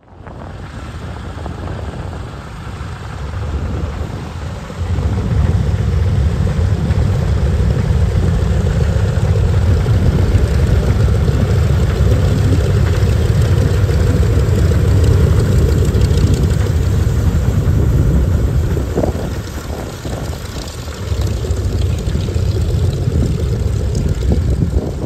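The two Pratt & Whitney R-1830 radial engines of a PBY Catalina amphibian running at taxi power, a low, uneven propeller rumble. It grows louder over the first five seconds, holds steady, then eases briefly and picks up again near the end.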